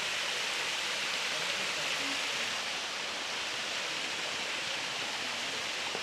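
Waterfall and stream water rushing over rock ledges, a steady, even hiss.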